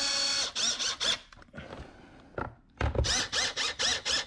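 Cordless drill driving in a bolt. A steady motor whine ends just after the start, then the trigger is pulsed: a few short bursts, a pause, and a quick run of short bursts near the end, each whine rising and falling in pitch.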